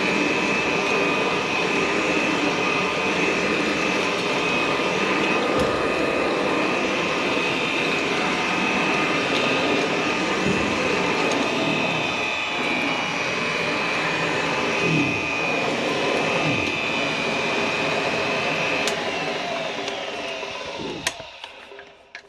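Vintage Hoover model 575 upright vacuum cleaner running steadily with a high whine, then switched off near the end, its motor winding down to a stop.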